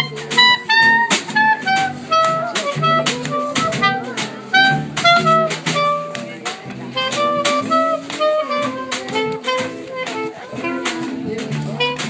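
Small jazz combo playing live: a clarinet carries a wandering melody over upright double bass, electric guitar and a drum kit keeping a steady cymbal beat.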